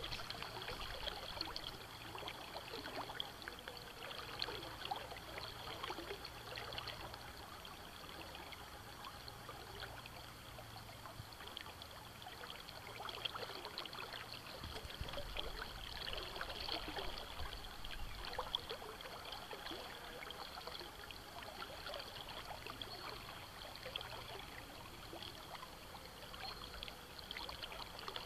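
River water running steadily over stones, with a constant babble and fine trickling.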